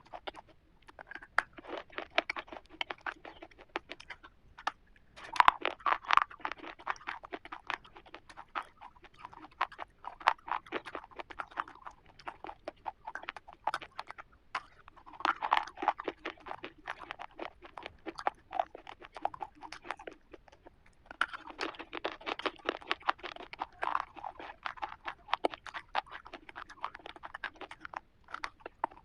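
A person biting and chewing a crisp chocolate-coated wafer bar (a KitKat), wet crackling crunches coming in bursts with short pauses between bites.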